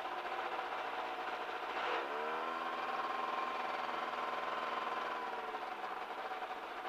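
Light experimental aircraft's piston engine running on the ground; about two seconds in its pitch rises as power is added, holds steady, and eases back down after about five seconds.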